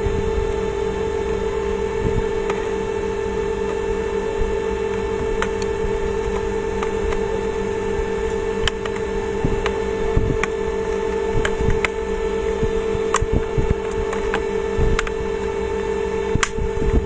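A steady electrical hum, with scattered light clicks and taps over it.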